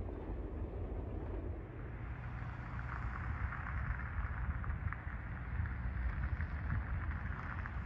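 Wind rumbling on the microphone, a steady low buffeting, with a hiss that builds about three seconds in.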